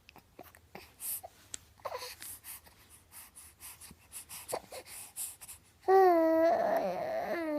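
Baby making small breathy sounds and short soft noises, then one loud, long vocal 'aah' starting about six seconds in and held for about a second and a half, its pitch dipping at the end.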